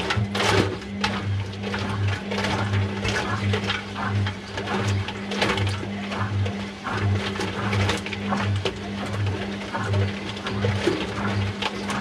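Front-loading washing machine drum tumbling a load of inflated balloons: a steady motor hum with a low throb pulsing about one and a half times a second, and irregular soft knocks and rubbing as the balloons bump around the drum.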